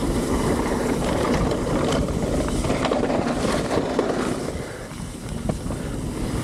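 Mountain bike descending a rough trail at speed: tyres rumbling over dirt, with clattering from the bike and wind noise on the microphone. It eases a little about five seconds in, then picks up again.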